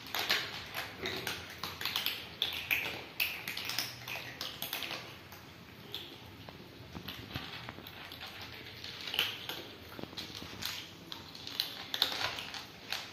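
Several cats crunching dry kibble together, a dense, irregular patter of small crunches and clicks with pellets tapping on the plastic tray. The crunching is busiest near the start and again about twelve seconds in.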